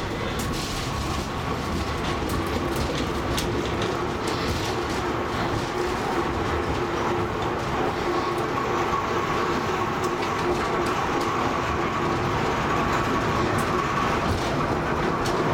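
Funicular car running through its tunnel, heard from the cab: a steady rumble of wheels on rail, with a steady whine and scattered clicks. It grows slightly louder.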